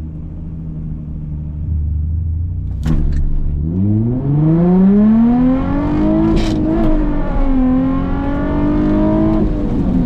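Nissan 350Z's 3.5 V6 with a loud sports exhaust, heard from inside the car, held at steady revs on the line and then launched, revs climbing hard. Revs drop at a gear change about midway, climb again in the next gear, and fall away as the throttle is lifted near the end.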